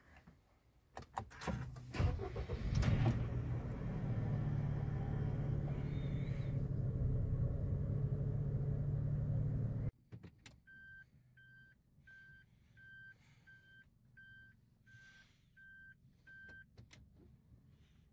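Suzuki Wagon R Stingray's 660cc three-cylinder engine starting after a few clicks, then idling steadily, heard from inside the cabin. After a sudden cut, a much quieter stretch holds about ten short electronic beeps from the car, evenly paced at roughly one and a half a second.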